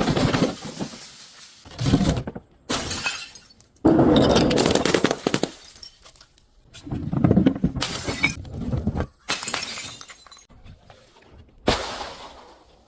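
Glass bottles shattering one after another: a run of separate smashes a second or two apart, each a sudden crash of breaking glass that dies away with tinkling fragments.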